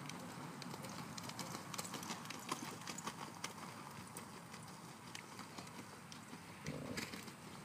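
Hoofbeats of a horse cantering on a sand arena: a quiet, irregular run of soft hoof strikes.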